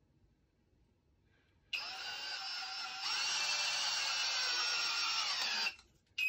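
A cordless drill driving a long screw into a log: after a short quiet the motor whines for about four seconds, getting louder about halfway through, then stops. The slightly worn bit is slipping in the screw head.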